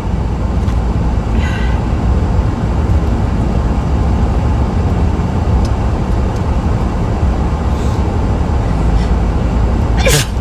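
A steady low rumble, with a short breathy sound about a second and a half in and a woman sneezing at the very end.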